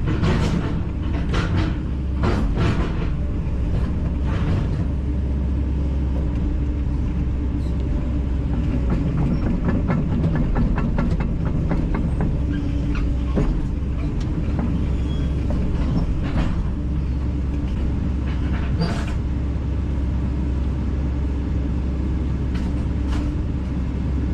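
Kobelco SK210LC-9 tracked excavator's diesel engine running steadily, with scattered metallic clanks and a quick, even run of ticks about ten seconds in.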